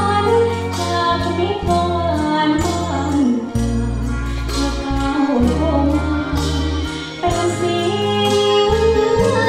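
A young woman singing a Thai luk thung song into a handheld microphone over a backing track with held bass notes.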